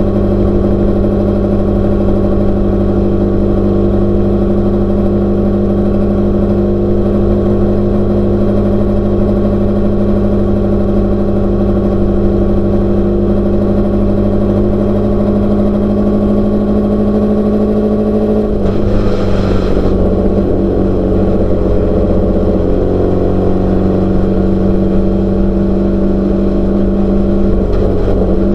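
Class 12 desert race car's engine running at a steady, high, constant speed. About two-thirds of the way through there is a brief hiss as the engine note shifts slightly.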